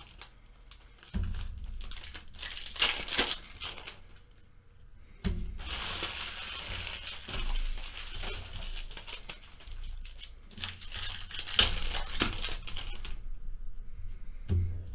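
Foil wrappers of baseball card packs crinkling and tearing as the packs are ripped open by hand and the cards shuffled, in irregular bursts with a few dull knocks.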